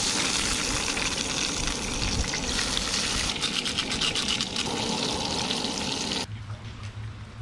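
Two bream frying in oil in a skillet on a propane camp stove: a steady sizzle. About six seconds in it cuts off, leaving a quieter low hum.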